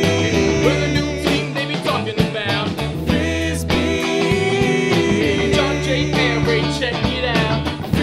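Rock band music with drum kit, bass guitar and electric guitars playing a steady groove.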